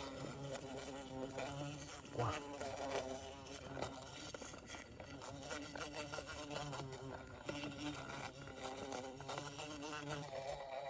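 Insect wings buzzing steadily, wavering in pitch.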